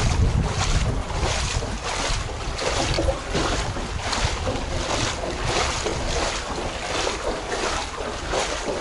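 Footsteps wading through shallow floodwater, each step a splash and slosh, about two steps a second. Wind rumbles on the microphone underneath.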